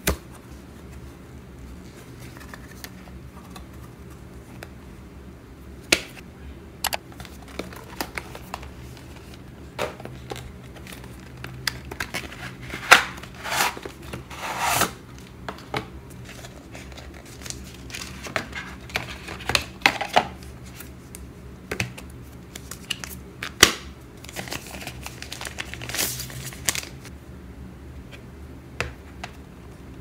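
Unboxing handling sounds: a cardboard box being opened, with packaging rustling and crinkling in short bursts and scattered sharp taps and clicks as a tablet case is lifted out and handled. A faint steady low hum runs underneath.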